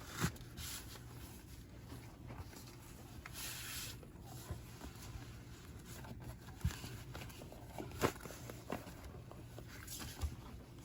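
Packaging being handled as a box is unpacked: scattered light clicks and knocks, with a brief rustle about three seconds in.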